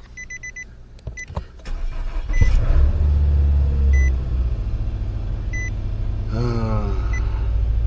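Nissan Altima's dashboard chime beeping rapidly, then a few clicks as the key turns and the engine cranks and starts about two seconds in, settling into a steady idle. Single chime beeps keep sounding every second or so over the idle.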